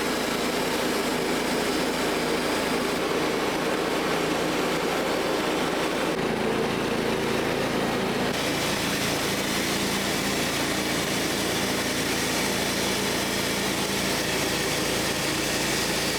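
Portable sawmill's small engine running steadily while milling a fir log, its pitch shifting slightly about six and again about eight seconds in as the load changes.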